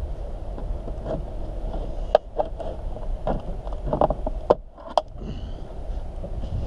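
Plastic interior trim panel being pulled off a van's side wall: a series of sharp clicks and snaps from about two to five seconds in as its retaining clips let go, over a steady low rumble.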